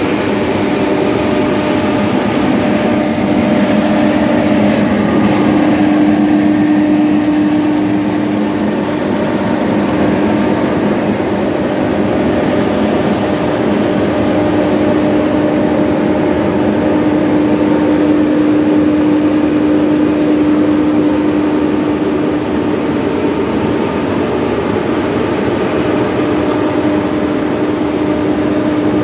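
Fortuner 100 kVA diesel generator running steadily inside its sound-proof canopy: a constant hum with one steady tone, without changes in speed.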